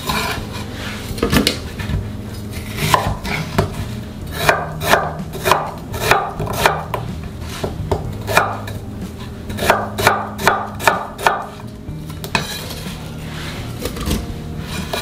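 Knife chopping a pear into small pieces on a cutting board: a run of sharp knocks, about two a second, that stops a few seconds before the end.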